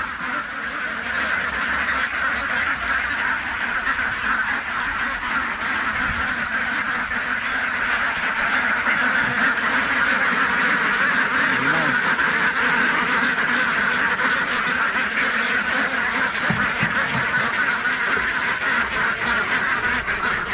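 A large flock of domestic ducks quacking together in a continuous clamour, crowding in to be fed.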